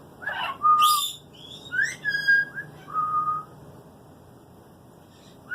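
Pet parrot whistling: a few clear held whistle notes, some opening with a quick upward slide, mixed with short raspy calls in the first second. The whistling stops about three and a half seconds in.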